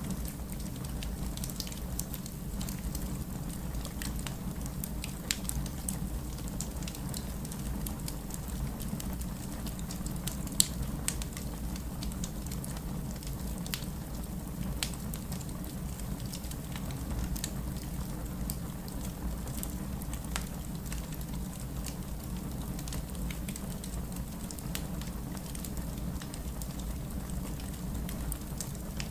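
Wood fire burning in a fireplace: a steady low rumble of the flames with scattered sharp crackles and pops, two of them louder than the rest.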